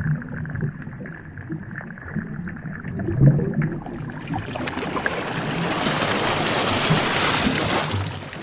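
A rushing, water-like noise with a low rumble underneath, swelling from about halfway through to a peak near the end and then falling away.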